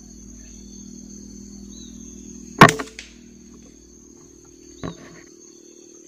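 Single shot from a wooden-stocked PCP air rifle: one sharp crack about two and a half seconds in, followed about two seconds later by a fainter click.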